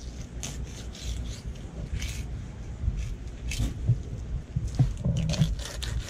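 Fillet knife cutting through fish skin and flesh on a cleaning table, in a series of short scraping strokes, over a steady low rumble of wind on the microphone.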